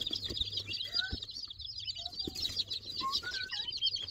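A box-load of newly delivered baby chicks peeping: a dense, unbroken chorus of rapid high-pitched peeps, with a few lower chirps that slide upward. The chicks are really loud and lively.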